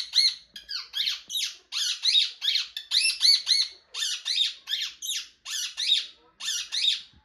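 Pet parrot giving a rapid series of short, high-pitched calls, several a second, in groups with brief pauses between them.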